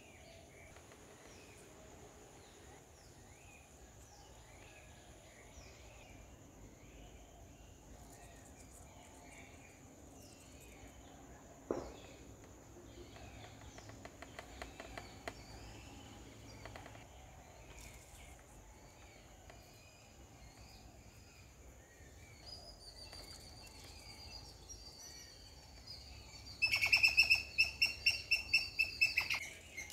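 Small birds chirping and twittering faintly, with a single sharp click about twelve seconds in. Near the end comes a loud, rapid run of high, sharp chirps, about five a second, for some three seconds.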